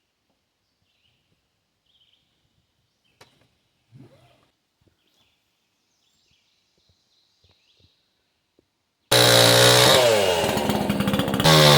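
Near quiet with a few faint high chirps and a click, then about nine seconds in a chainsaw cuts in suddenly, running loud and revving up and down.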